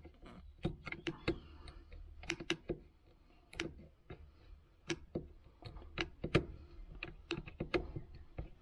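Irregular sharp plastic clicks and taps from a screwdriver and hands working the spring-loaded shifter linkage cable ends on a Toyota Corolla's plastic shifter assembly, as the ends are twisted counterclockwise to release them.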